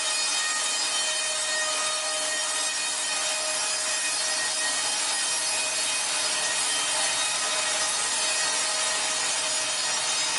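A saw cutting through wood: a steady, even rasping noise without breaks.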